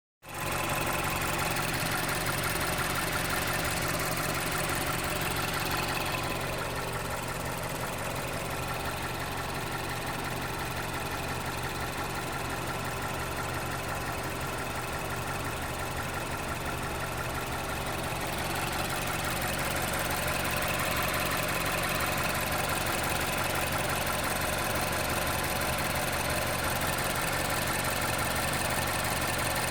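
2011 Mazda CX-7's 2.3-litre turbocharged four-cylinder engine running steadily at idle, carrying an unwanted engine noise. It gets a little quieter about six seconds in and comes back up near eighteen seconds.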